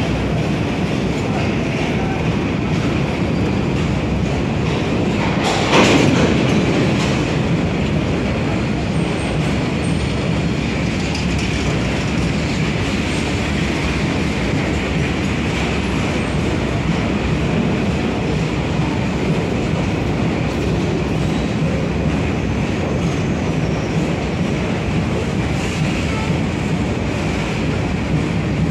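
Empty BOXN open-top steel freight wagons rolling past close by: a steady rumble and clatter of steel wheels on the rails, with one loud bang about six seconds in.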